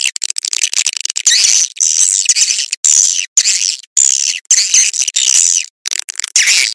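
Swiftlet lure-call recording, the 'sambor' calling sound used to draw edible-nest swiftlets into a bird house: rapid, high twittering chirps in bursts broken by short silences.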